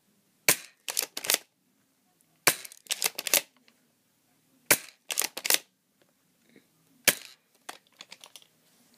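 Shotgun-style BB gun fired at point-blank range into an iPod shuffle: four sharp cracks about two and a half seconds apart, each followed by a quick run of smaller clicks.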